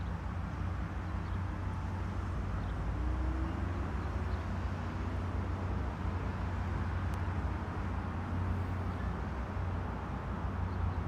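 Steady low outdoor background rumble with no distinct event.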